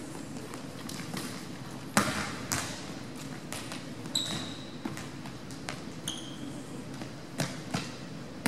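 Volleyball smacking against players' hands and the hardwood gym floor, a string of sharp hits with the loudest about two seconds in, echoing in the hall, with two short sneaker squeaks in the middle.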